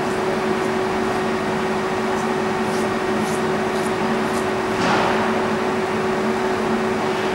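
Steady machine hum with two constant low tones over a broad hiss, like ventilation equipment running in a large hall. A short, louder rush of noise comes about five seconds in.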